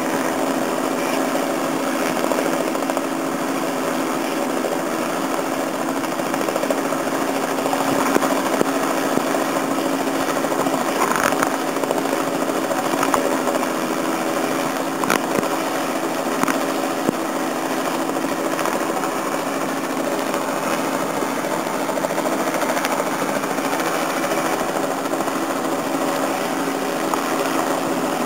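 Robinson R44 helicopter hovering on approach to a ridge-top landing, its piston engine and rotor running steadily, with a few brief clicks.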